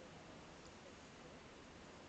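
Near silence: a faint, even hiss.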